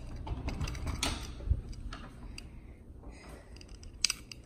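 Handling noise from a handheld phone camera being carried and moved: scattered light clicks and rustling, with a dull thump about a second and a half in and a quick run of sharp clicks near the end.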